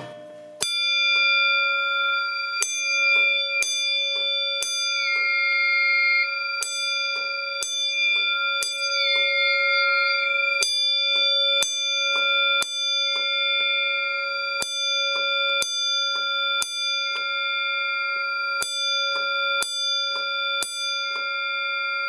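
Fire alarm gong bell, a Pyrotronics single-stroke bell, struck over and over at an uneven pace, roughly every half second to a second. Each strike rings on, so its tones hang steadily between blows. The fire alarm system is in alarm, set off by a manual pull station.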